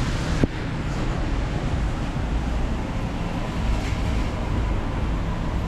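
Steady city street noise: traffic on a rain-wet road, with a short sharp click about half a second in.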